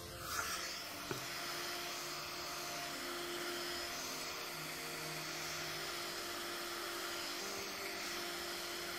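Hot-air gun running steadily, its fan blowing hot air over a phone's back glass to soften the adhesive. A small knock about a second in.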